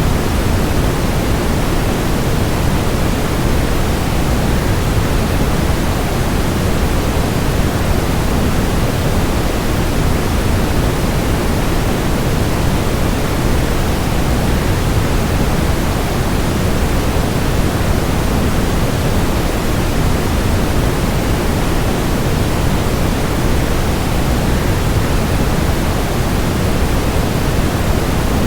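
Steady, unbroken rushing noise, heaviest in the low end and thinning toward the top, with no changes or events: waterfall white noise.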